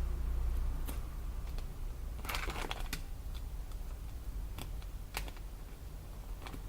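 Scattered light clicks and taps, like small objects being handled, with a brief rustle about two seconds in, over a steady low hum.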